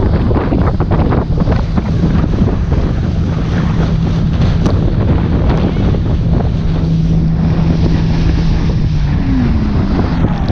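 Wind buffeting the microphone and water spray hissing and splashing as an inflatable towable is pulled at speed over the wake, with an engine's steady drone underneath that drops in pitch about nine seconds in.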